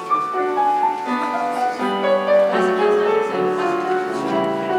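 Piano playing a flowing melody of held notes that step up and down.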